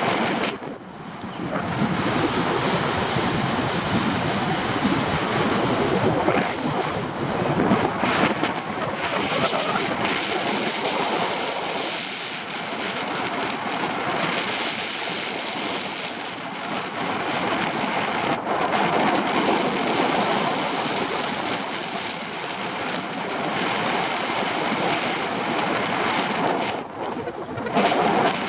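Rushing wind on the microphone of a camera carried by a paraglider in flight: a steady rush of airflow that swells and eases.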